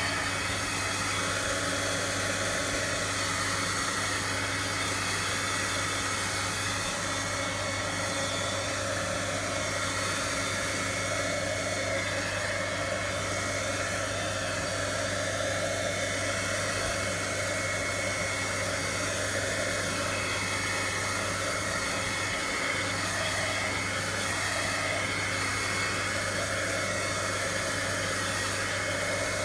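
Handheld electric heat tool blowing hot air to dry wet spray paint on paper: a steady rush of air over a constant low motor hum, unchanging throughout.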